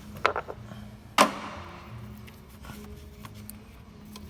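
A few sharp clicks followed by one loud knock with a short ringing tail about a second in: hand work pulling a hose off in the engine bay.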